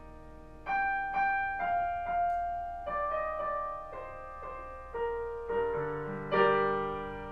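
Piano played slowly: a held chord dies away, then about a dozen single notes and chords are struck one after another, each ringing on under the next, the loudest chord near the end.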